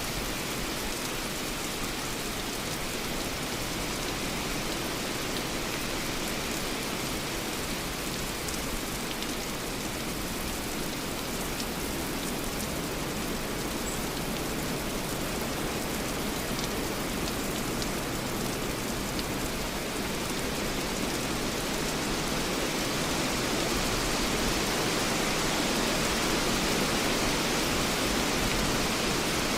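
Light rain falling steadily with wind in the trees: an even, continuous hiss with faint scattered drop ticks, growing a little louder after about twenty seconds.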